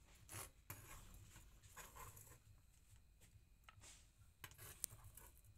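Faint scraping and light ticks of a blade pushing chopped onion off a plastic cutting board onto a ceramic plate, with one sharp click near the end.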